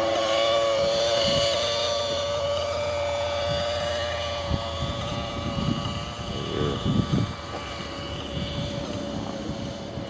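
Nitro glow engine of a T-Rex 600 RC helicopter running at a steady idle, slowly getting quieter as it is carried away. Gusts of wind rumble on the microphone between about five and seven seconds in.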